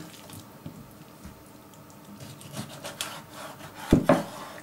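Kitchen knife cutting a bream fillet on a wooden cutting board, with faint scraping strokes, then two sharp knocks of the blade against the board near the end.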